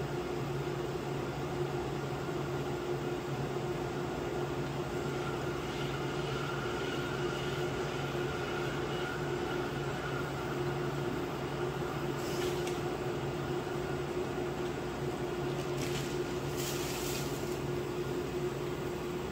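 Portable induction cooktop running under a stainless steel saucepan of heating water: a steady hum with the whir of its cooling fan. A few brief, higher-pitched noises come about twelve and sixteen seconds in.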